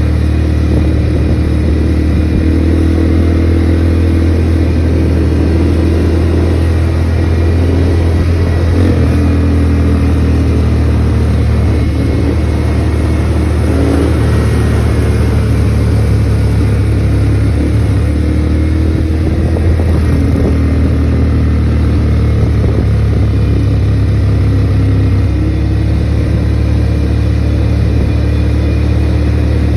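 ATV engine running steadily under way, its pitch shifting up and down now and then with the throttle.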